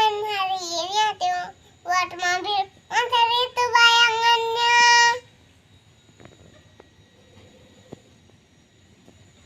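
A child singing a short melody with long held notes; the singing stops about five seconds in, followed by a few faint clicks.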